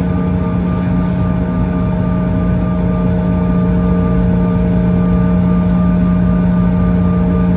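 Jet airliner engines at taxi power heard from inside the passenger cabin: a steady hum with several steady whining tones above it.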